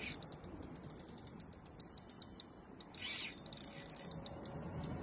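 Fishing reel clicking, several sharp ticks a second, as a hooked fish is played on a heavily bent rod; a short hissy rasp about three seconds in.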